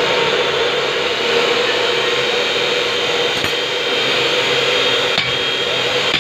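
A few hammer knocks on red-hot metal held in tongs on an anvil, about three and a half and five seconds in, over a steady whirring motor hum.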